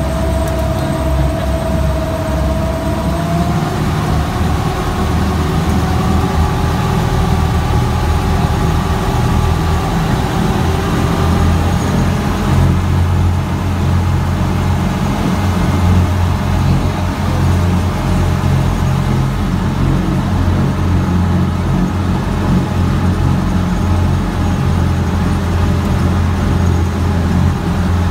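Amphibious Duck tour boat under way on a river, heard from aboard: its engine runs with a steady low drone over the rush of water from its wake. A faint whine rises slightly in pitch in the first few seconds.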